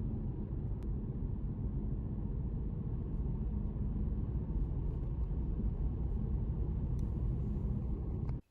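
Subaru car being driven: a steady low rumble of road and engine noise that cuts off suddenly near the end.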